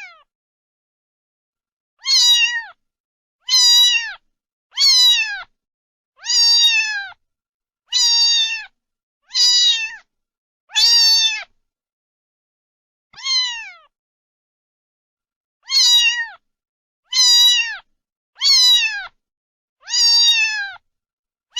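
A domestic cat meowing over and over: about a dozen meows, each falling in pitch at the end, roughly a second and a half apart, with one longer pause around the middle.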